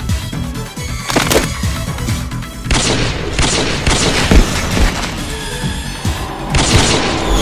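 Tense action-film score: a steady low drone punctuated by several heavy booming hits.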